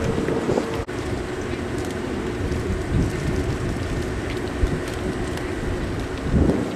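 Steady hum of a standing electric train's onboard equipment over a continuous rushing noise. It breaks off abruptly about a second in and resumes with its tone slightly lower.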